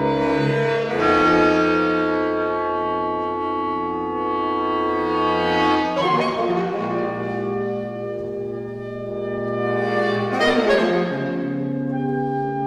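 A small saxophone ensemble playing slow, held chords, moving to a new chord about a second in, again around six seconds, and near the end.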